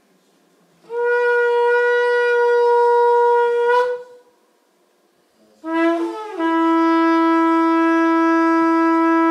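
Shofar blown in two long, steady blasts. The first holds one note for about three seconds with a brief upward flick as it ends; after a short pause the second begins with a wavering, breaking note, then settles on a lower held note.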